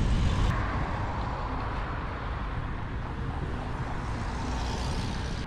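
Steady rush of wind on a helmet-mounted action camera while cycling along a road, mixed with the noise of passing traffic. The sound is heaviest in the low rumble.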